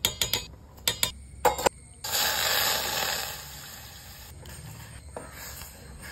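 A metal spoon clinking and knocking against a steel cooking pot several times, then a loud stretch of hiss as milk is poured into the pot.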